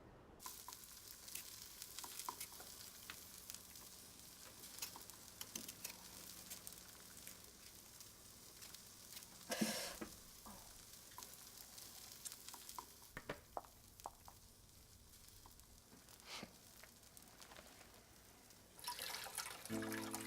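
Water sounds: a steady hiss with scattered drips and ticks, like rain falling, with one louder splash about ten seconds in. Near the end a louder sound made of several steady low tones comes in.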